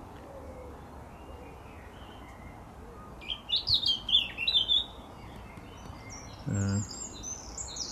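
A songbird in the hedgerow sings one quick, twittering phrase of high notes and short slides about three seconds in, over a steady low outdoor background.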